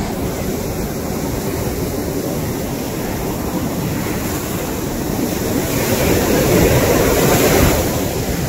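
Surf breaking and washing up a sandy beach, with wind buffeting the microphone; a wave swells louder about six seconds in and eases off near the end.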